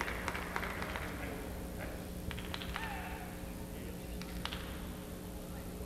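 Cutting horse's hooves knocking and scuffing in the arena dirt as it works a calf, over a steady hum of arena ambience. A short rising-and-falling call sounds about two and a half seconds in.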